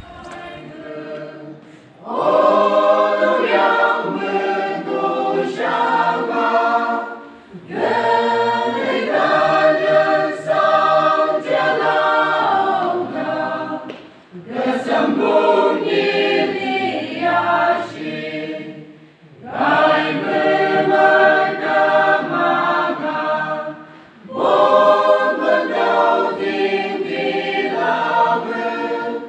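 Church choir singing a hymn, starting about two seconds in and going on in phrases with short pauses between them.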